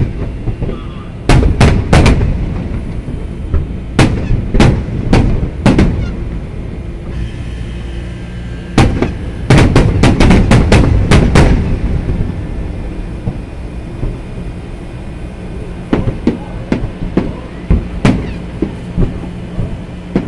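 Aerial firework shells bursting one after another in sharp booms, with a dense rapid volley about nine to eleven and a half seconds in, then smaller, quicker pops near the end.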